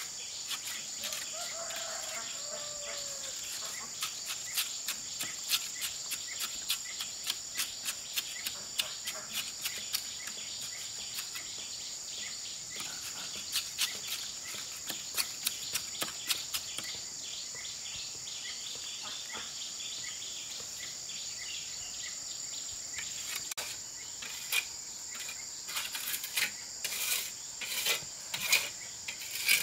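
A steady, high-pitched drone of insects such as crickets or cicadas. Over it run short scraping and tapping strokes of hand work, about two a second. They pause for several seconds midway, then resume louder near the end.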